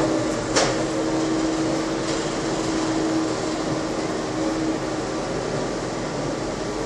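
Propane forklift engine running as the truck moves about the loading dock, a steady hum with a low tone that fades out about five seconds in, over a constant mechanical noise. One sharp click comes under a second in.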